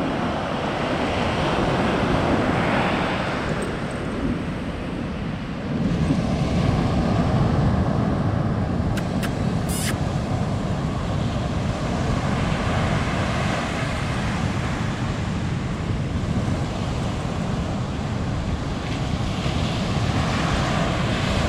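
Ocean surf breaking and washing up the beach, mixed with wind buffeting the microphone; the rumble grows louder about six seconds in.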